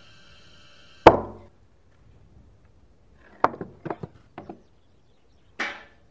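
A single heavy knock on wooden planks about a second in, then a quick run of four or five lighter wooden knocks and clatters, and a brief scrape near the end, as the plank cover of a well is handled.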